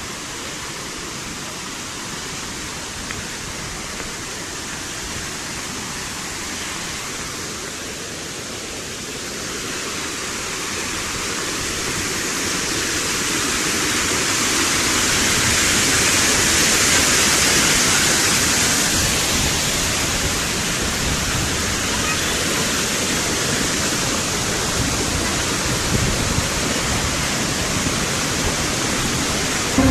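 Waterfall, a steady rush of falling water that grows louder from about ten seconds in and then holds steady.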